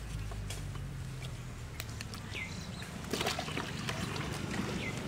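Water splashing and sloshing in a plastic basin as a freshly caught fish is handled and flaps in it. The splashes and knocks are loudest a little past the middle.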